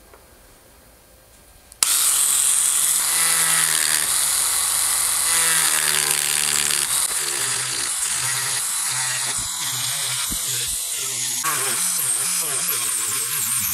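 Handheld rotary tool with a thin cutoff disc starting suddenly about two seconds in and running at high speed, the spinning disc cutting a slot into a carved wooden lure body.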